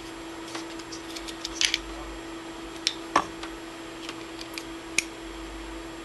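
Wire stripper working the insulation off a thin power wire: a few sharp clicks and snips, a small cluster about a second and a half in and single ones later, over a steady hum.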